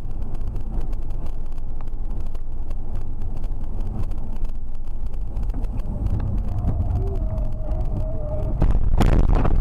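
Car cabin road noise: engine and tyres drone steadily at speed. Near the end there is a sudden loud, rough noise as the car runs off the road toward the trees.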